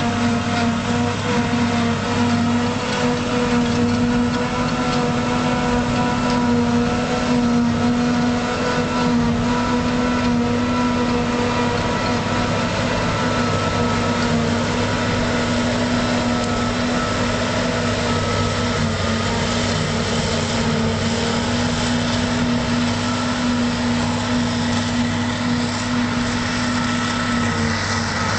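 Claas Jaguar self-propelled forage harvester running steadily under power, a constant engine and machinery drone with several steady humming tones.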